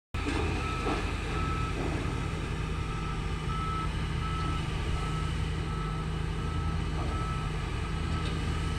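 A heavy construction vehicle's reversing alarm beeping, one short high beep about every 0.7 s, starting about a second in, over its steady diesel engine drone.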